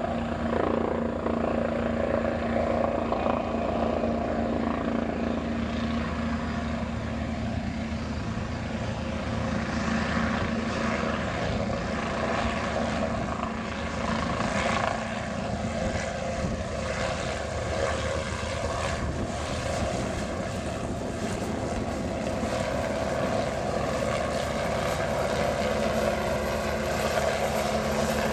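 Helicopter engine and rotor running steadily: a constant, fairly loud drone with steady tones, and no break or marked rise or fall.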